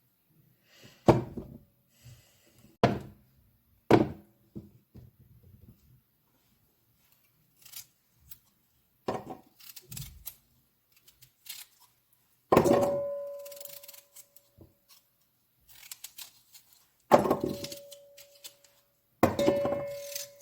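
Kitchen clatter: about three sharp knocks in the first few seconds, then lighter clicks. In the second half, metal cookware is struck or set down four times, each strike leaving a clear ringing tone that fades over a second or two.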